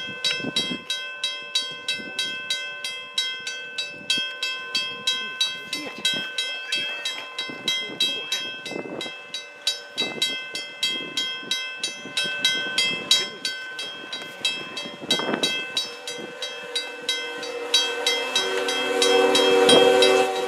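Level-crossing warning bell ringing in steady, evenly repeated strokes. In the last few seconds a locomotive ploughing through deep snow comes in under it, growing louder, with its horn sounding.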